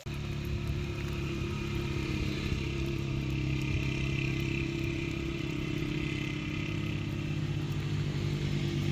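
A small engine or motor running steadily at a constant speed, with a low, even drone; it cuts in suddenly at the start.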